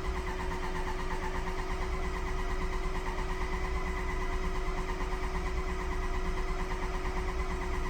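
Ford 6.0L Power Stroke V8 diesel cranking steadily on its starter without firing, slowed by low battery voltage after the high-pressure oil system was opened and has air in it.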